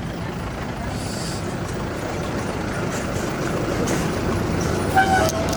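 Steady rumble of a motor vehicle travelling along a road, slowly growing louder, with a short pitched sound near the end.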